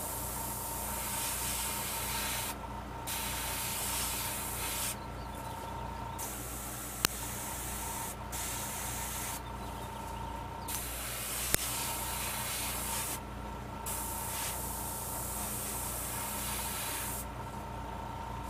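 Airbrush spraying paint in a series of hissing bursts a few seconds long, stopping and starting as the trigger is worked, over a steady low hum, with two sharp clicks midway. Little paint is getting through: the trigger is not being pulled back far enough.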